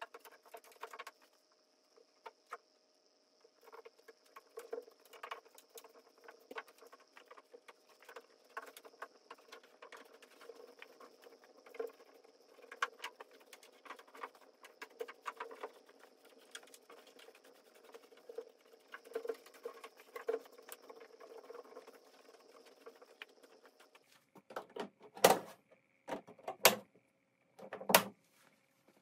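Rubber weatherstrip seal being pressed by hand onto the edge of a car's hatch opening: a long run of soft, irregular taps and rustles. Near the end come three loud sharp knocks as a plastic trim panel is pushed into place on the tailgate.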